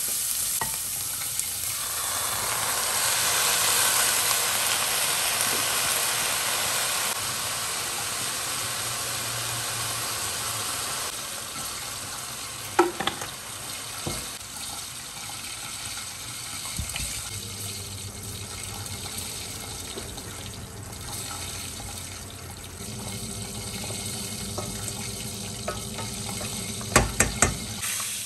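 Chicken deep-frying in hot oil: a steady sizzling hiss, strongest in the first few seconds and then easing. Sharp knocks of a utensil or pan come once about halfway and several times near the end.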